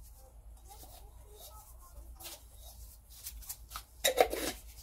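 Spice powder being shaken from a small container over raw meat in a bowl: faint handling noises, then a brief run of quick shakes about four seconds in.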